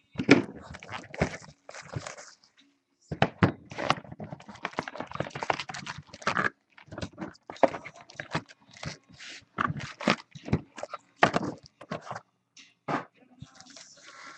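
Baseball card packs and cards being handled: irregular rustling, scraping and light tapping of wrappers and card stacks.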